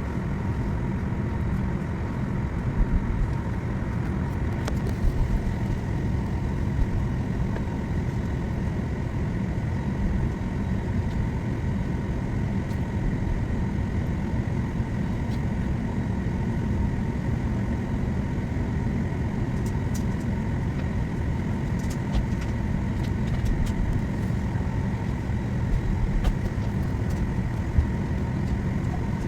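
Steady low rumble and hum inside a Boeing 737 MAX airliner cabin on the ground before takeoff, with a faint high steady whine: the engines at idle and the cabin air running. A few faint clicks come through.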